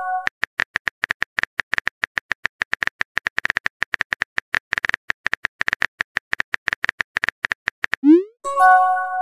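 Rapid, uneven keyboard tap clicks of a texting app's simulated typing. About a second before the end comes a short rising swoop, then a chime of a few held notes: the app's message-sent sound.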